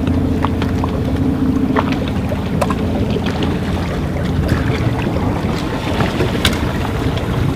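Photo RIB's motor running steadily at low speed, heard from on board, with scattered light clicks over it.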